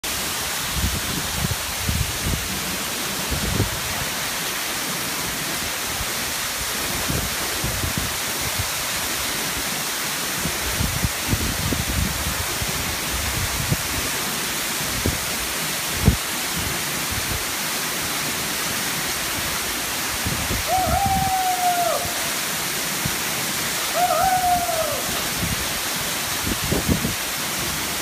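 Waterfall plunging into a pool: a steady, even rush of falling water, with irregular low thumps of wind buffeting the microphone. In the last third, two short high calls come about three and a half seconds apart.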